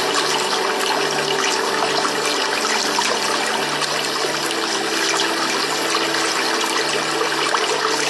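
Steady running water with an even rushing, trickling sound and no breaks. Faint sustained tones, like soft music, are held underneath it.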